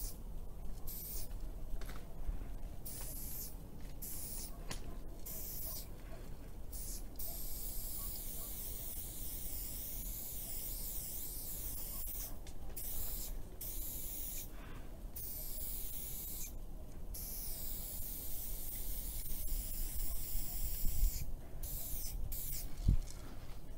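Aerosol spray paint can hissing in repeated short bursts, with one longer continuous spray of several seconds in the middle.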